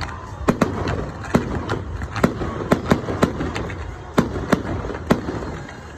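Fireworks display: about a dozen sharp bangs of bursting shells at irregular intervals, some in quick pairs, over a continuous low rumble.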